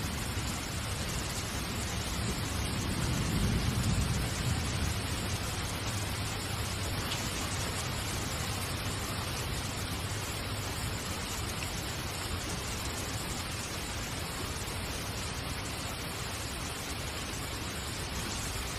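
Steady even hiss, with a low rumble swelling briefly about three to four seconds in.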